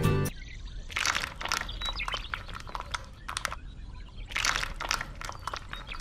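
Small trowel scraping wet cement across loose gravel in several short bursts, with the stones grating under it.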